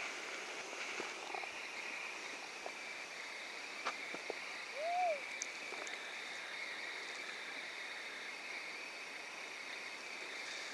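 Faint steady hiss of the outdoor background, with a few soft clicks near four seconds in and one short call that rises then falls in pitch a little after five seconds in.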